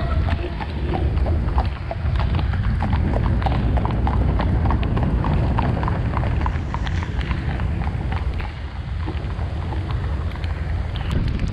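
Horses' hooves clip-clopping on wet pavement as horse-drawn buggies pass, the hoofbeats thinning out toward the end. Under them runs a steady low rumble of wind on the microphone from riding.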